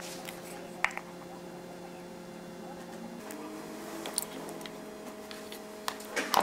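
Soft wet squishes and a few light taps as a plastic measuring cup scoops applesauce out of a glass jar. A steady low hum runs underneath and shifts in pitch about halfway through.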